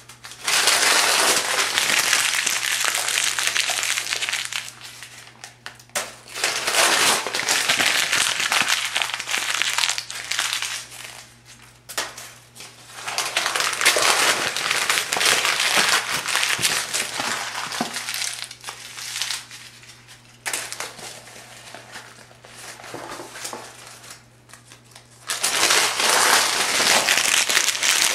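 Thin phone book pages being crumpled by hand, in about five spells of dense crackling a few seconds each with short pauses between. A faint steady low hum runs underneath.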